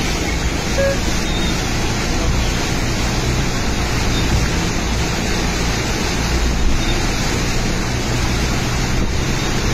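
Steady rushing noise of a heavy rainstorm with wind, without a break.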